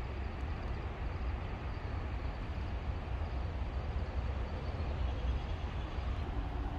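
Steady outdoor city ambience: an even hiss of distant traffic over a low, fluttering rumble of wind buffeting the microphone.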